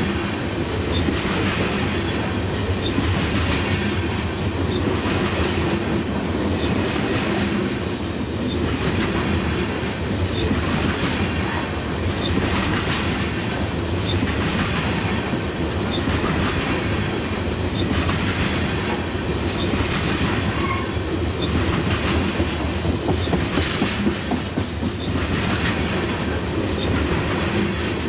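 Freight train of covered hopper cars rolling past close by: a steady rumble of steel wheels on rail with a clickety-clack, swelling about every two seconds as each car's wheel sets go by.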